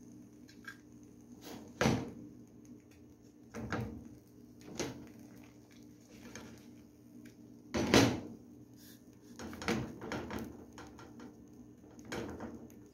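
Kitchen clatter: a frying pan on a gas stove's grate and a bowl and spoon knocking against it as tapioca starch is tipped in and spread. There are about six separate knocks, the loudest about eight seconds in, over a faint steady hum.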